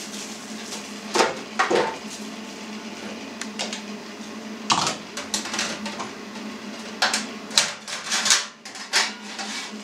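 Handling of cheese-making gear on a table as a pressed cheese is turned in its bottomless plastic form: scattered clicks, taps and knocks of the plastic form, drainage mat and stainless steel tray, busiest in the last few seconds.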